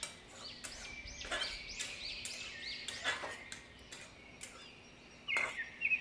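Metal spatula scraping and knocking against a metal kadhai as a thick chickpea curry is stirred, a few sharp knocks among softer scraping. Small birds chirp over and over in the background, quick rising-and-falling chirps through the first half and again near the end.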